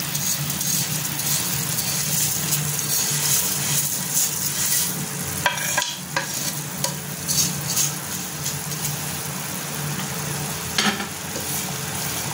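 Water at a rolling boil in a non-stick pan, hissing and bubbling steadily over a low hum, as roasted vermicelli is tipped in from a plate. A few short clatters come near the middle and again about eleven seconds in.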